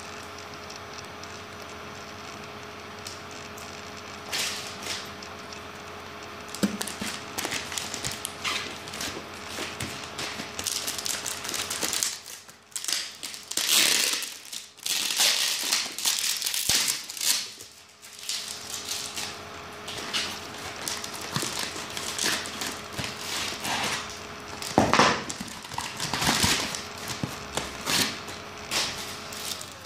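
Plastic air-column cushion packaging crinkling and rustling as it is handled and pulled open around a cardboard phone box, in irregular crackles that grow busier about a quarter of the way in. A faint steady hum runs underneath.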